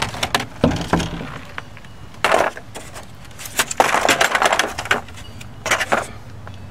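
A Honda Ridgeline's plastic front grille being handled and laid down on cardboard. There is a string of separate knocks and clatters, with a longer scraping rustle in the middle.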